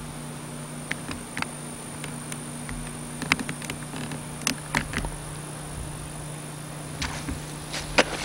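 Footsteps through low bog shrubs and sedges on a sphagnum mat: scattered brushing and crackling clicks, coming more often from about three seconds in. Under them runs a steady low buzz.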